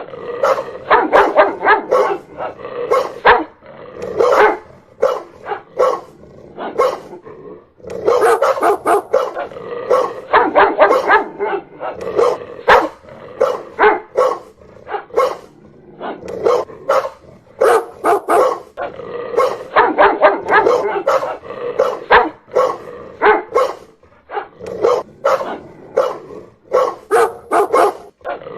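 Dog barking loudly and repeatedly in fast volleys of short barks, with brief pauses between bouts.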